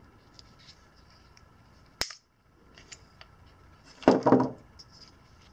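Hands handling a scooter battery's wiring and its warning sticker: quiet rustling with a sharp click about two seconds in, then a brief louder rustle about four seconds in.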